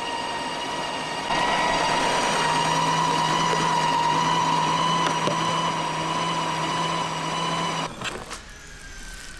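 Kenwood electric meat grinder running while it minces meat: a steady motor whine with a low hum. It grows louder about a second in and stops suddenly near the end.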